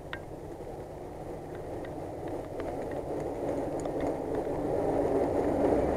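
Jeep Wrangler Rubicon's engine pulling under load as the Jeep crawls toward a birch log, tyres spinning in wet leaves and mud. The sound grows steadily louder throughout.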